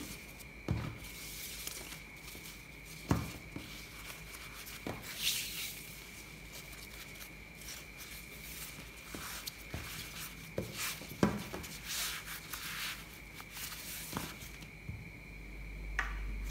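Necktie fabric rustling and rubbing as hands quickly fold, wrap and pull it through into a knot, with scattered light knocks of hands and tie on a wooden tabletop.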